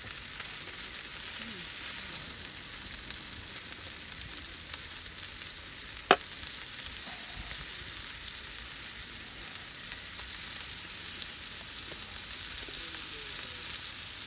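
Meat sizzling steadily in a hot frying pan on a portable camping stove, with a single sharp click about six seconds in.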